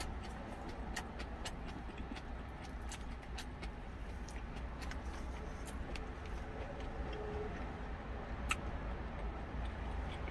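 Close-up eating sounds: chewing and lip smacks, with wooden chopsticks clicking against a small stainless steel cup in scattered short ticks, one sharper click near the end. Beneath them runs a steady low rumble from the parked truck's idling engine.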